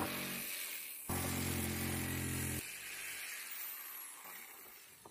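Corded electric jigsaw running as it cuts a curve in a wooden board: it stops about half a second in, runs again for about a second and a half, then is switched off and fades out.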